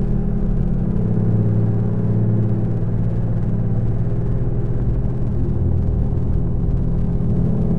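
Ambient electronic drone from a VCV Rack software modular synthesizer: deep sustained low tones layered together, their pitches shifting slowly.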